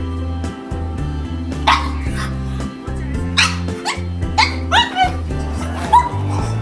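Background music with a steady bass line, over which a pug puppy gives a string of short yips and barks in play.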